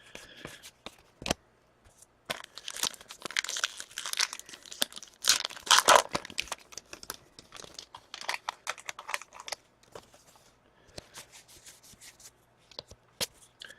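Trading-card pack wrapper being torn open and crinkled, with scattered sharp clicks as the cards are handled. The tearing is loudest about halfway through, then thins to lighter rustling and clicks.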